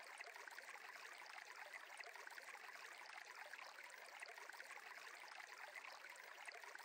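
Faint, steady trickling of a flowing stream, close to near silence.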